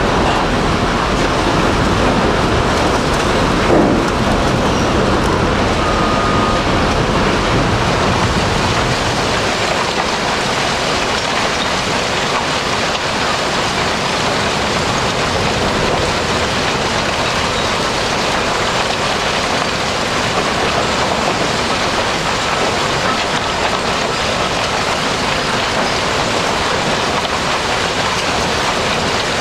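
Scrap-metal shredder plant running: a steady heavy rumble with a single loud knock about four seconds in, then, from about nine seconds in, a dense continuous clatter of shredded steel fragments pouring over a conveyor drum.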